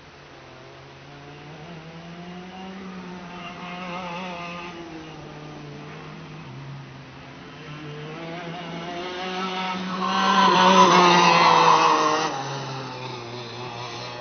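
Go-kart engines running on a race track, their pitch rising and falling as the karts accelerate and brake. One kart passes closest and loudest about ten seconds in, then its sound drops away about two seconds later.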